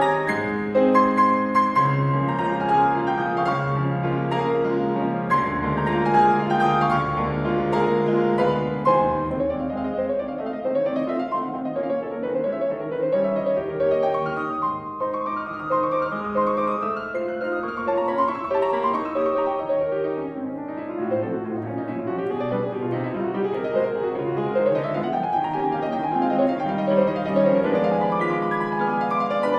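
Grand piano played solo: a classical piece, with quick runs of notes sweeping up and down in the middle and again near the end.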